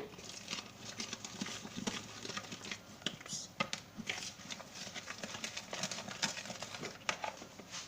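Kutsinta batter being stirred in a bowl, the mixing utensil clicking and tapping against the bowl in quick, irregular strokes while water is worked in a little at a time.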